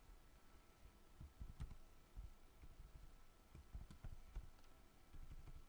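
Near silence: room tone with a few faint, scattered clicks from computer input as text is being set up.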